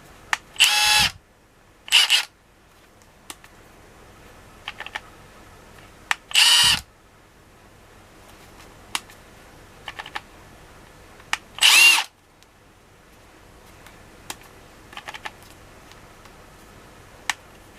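Milwaukee M12 FUEL brushless 1/2-inch compact impact wrench free-running without load in four short trigger pulls, each under a second, its motor pitch rising and falling with each pull. Faint small clicks come in between.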